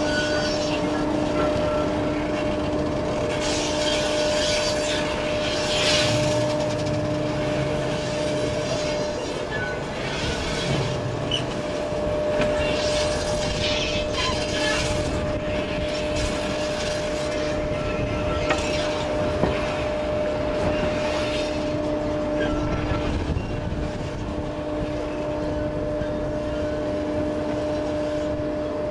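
4-CEP slam-door train trundling slowly along the track, heard from an open window. A steady hum runs under the running noise, with irregular hissing rushes coming and going.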